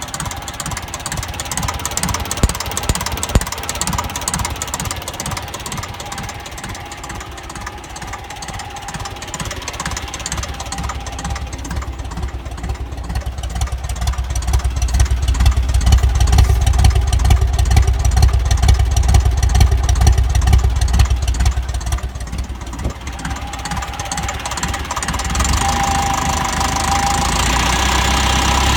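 Ferguson TEF tractor's four-cylinder diesel engine running with an uneven knocking beat, which the owner suspects is a misfire. It runs louder and heavier for a spell in the middle, eases off, then picks up again near the end.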